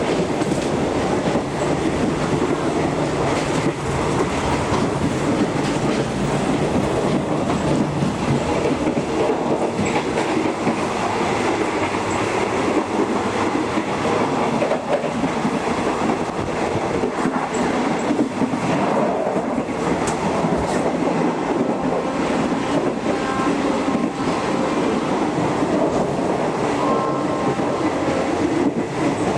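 State Railway of Thailand passenger coach running along the line, heard from inside the non-air-conditioned car: a steady rolling rumble of wheels on rail with scattered clicks and clatter.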